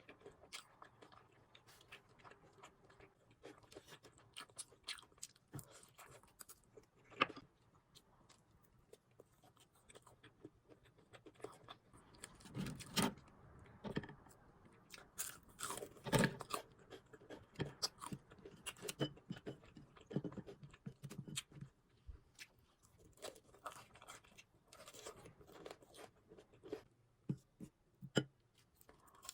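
Close-miked crunchy chewing and biting of fried food: irregular crisp crunches, louder around the middle.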